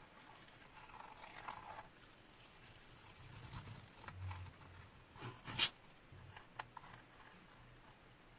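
Masking tape being peeled off a painted canvas: a series of short tearing and crinkling pulls, the loudest a little past halfway.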